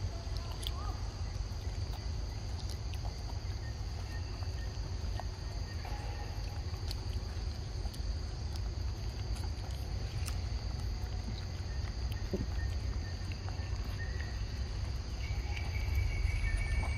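Steady high-pitched drone of forest insects, over a continuous low rumble, with a few faint scattered clicks.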